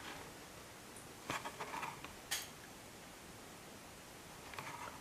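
A carded diecast car's plastic blister pack and cardboard backing being handled: a few faint crinkles and rustles, with one sharp click about two seconds in.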